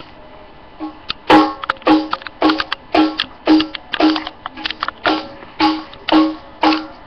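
Music with a steady beat of about two plucked-sounding hits a second, starting about a second in.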